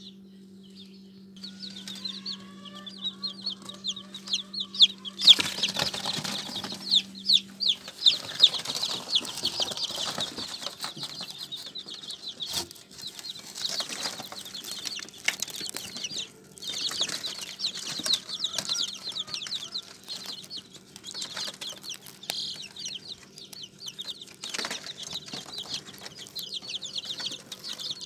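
A group of young chicks peeping fast and without a break, many high, falling peeps overlapping, louder from about five seconds in. They are frightened chicks, scared by the disturbance in the brooder.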